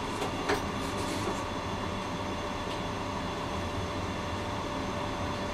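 Comeng A-class tram running along street track: a steady rumble with a steady hum over it, and a single sharp clack about half a second in.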